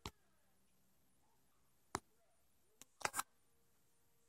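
A few short sharp clicks over near quiet: one at the start, one about two seconds in, then a quick cluster of three about three seconds in.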